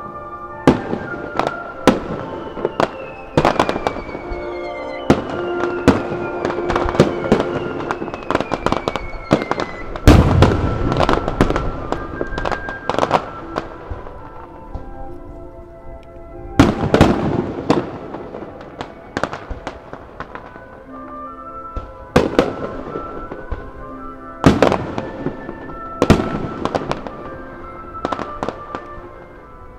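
Starmine fireworks barrage: a rapid run of shell bursts, booms and crackles, loudest about ten seconds in, easing after about fourteen seconds into single heavy bursts every couple of seconds, with music playing throughout.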